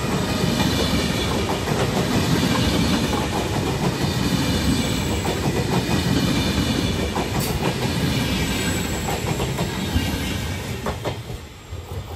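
Double-deck passenger train (Trenitalia Vivalto cars) passing close by at speed: a steady rumble of wheels on rail with scattered sharp clicks from the rail joints, falling away near the end as the last car goes by.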